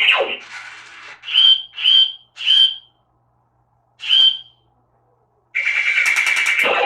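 Cady Will toy robot's speaker playing electronic sound effects: three short whistle-like chirps in quick succession, a fourth a moment later, then a longer buzzing electronic sound near the end.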